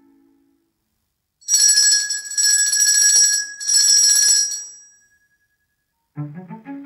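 A small metal bell rings rapidly in three bursts of about a second each, loud and bright. Low orchestral music comes back near the end.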